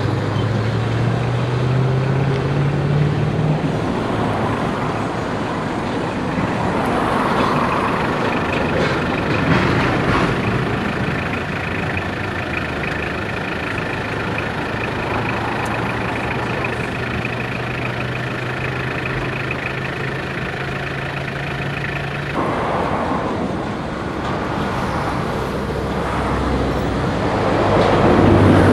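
Freight train of rail tank cars rolling past: a steady loud rumble with an engine hum and a thin high squeal over the middle. The hum and squeal cut off abruptly about three-quarters of the way through.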